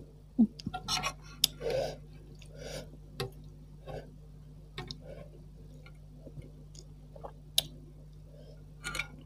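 Scattered sharp clicks and clinks of metal cutlery against a stainless steel pot as the last broth is scooped up, with a few soft slurps near the start.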